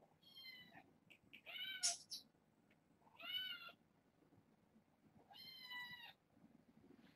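A cat meowing four times, short pitched calls spaced one to two seconds apart; the second meow is the loudest.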